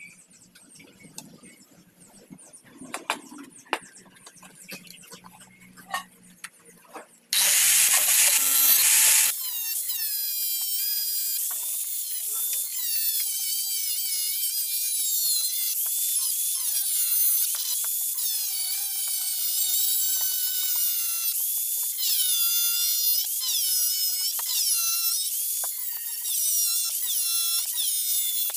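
Quiet handling clicks as a clamp is set on a steel blade, then about seven seconds in an angle grinder with a thin cut-off disc starts and bites into the steel. It cuts with a loud, high shrieking whine whose pitch dips and recovers as the disc is pressed into the metal.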